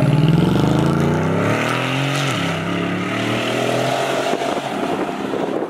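Mercedes G-Class SUV engine accelerating past, loud at first, its note dipping and then climbing again, then fading as it pulls away down the road.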